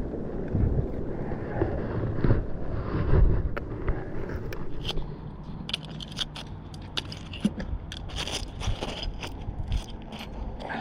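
Wind rumbling on the microphone for the first few seconds, then a long run of sharp clicks, scrapes and crunches, like metal pieces being scraped and handled.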